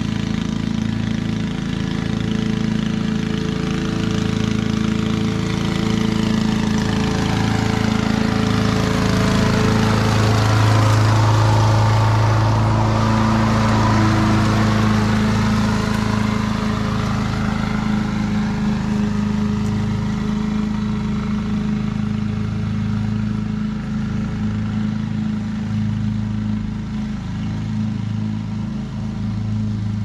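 Honda HRC216 commercial push mower's single-cylinder four-stroke engine running steadily while mowing grass. It gets louder as the mower comes close around the middle, then fades as it moves away.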